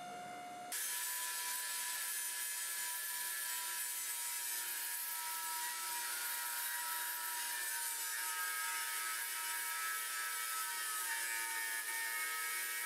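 Angle grinder with a thin cut-off wheel cutting through a layered steel billet: a steady motor whine over the hiss of the wheel on steel, starting about a second in.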